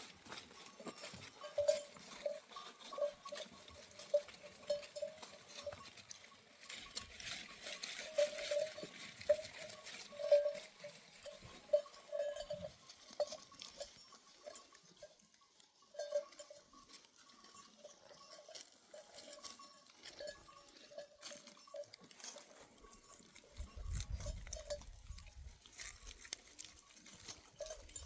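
Bells on a grazing flock of sheep and goats clanking irregularly as the animals move.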